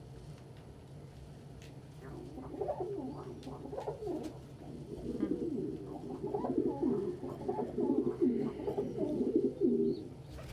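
Domestic pigeons cooing, starting about two seconds in and coming in quick, near-continuous runs through the second half, over a steady low hum.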